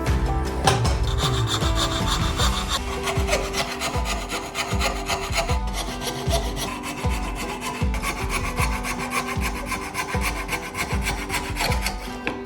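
Hand tool worked back and forth through a wooden board in steady, even strokes, roughly one and a half a second, while cutting a hole in the board.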